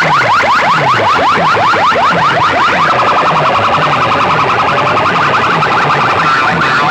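Loud DJ remix track dominated by a rapid, repeating siren-like electronic sweep, about six rising chirps a second, over a pulsing bass beat. About three seconds in, a wavering alarm tone joins the sweeps.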